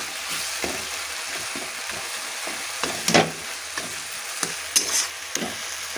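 Tomato masala sizzling in a metal kadai while a metal spatula stirs and scrapes it, in many short strokes with one louder scrape about three seconds in. The tomatoes are frying down to a done masala.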